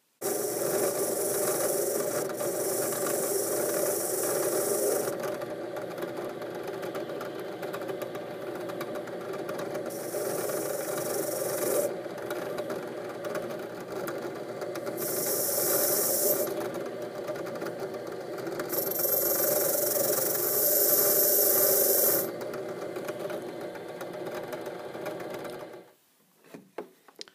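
A drill press running steadily with a wheel in its chuck, humming. A saw-handle screw is pressed against the spinning wheel four times to strip the old paint, each time giving a loud rasping hiss lasting a few seconds. The machine sound stops suddenly near the end.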